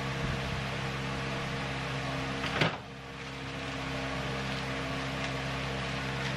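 Microwave oven running with a steady electrical hum while it heats food. A brief knock about two and a half seconds in.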